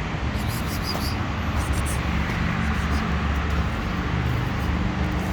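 Steady rumble of a running vehicle engine amid street noise.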